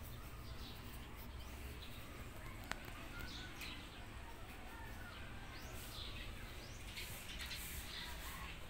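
Small birds chirping in short, scattered calls over a steady low hum, with one sharp click a little under three seconds in.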